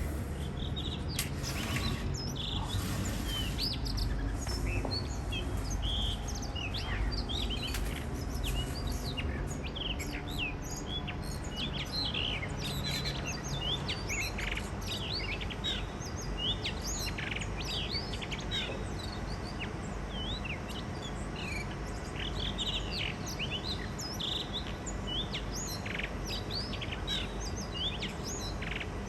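Blue rock thrushes singing their spring song: a steady stream of quick, short whistled notes and chirps, over a constant low background rumble.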